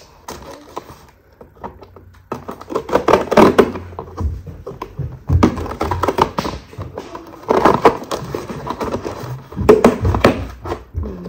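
Cardboard shipping box being opened with a knife: packing tape slit and scraped, cardboard flaps handled, in irregular bursts of scraping with short knocks.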